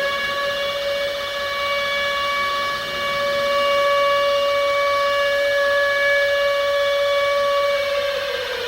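Civil defence air-raid siren warning of a nuclear attack, holding a steady high wail and starting to fall in pitch near the end.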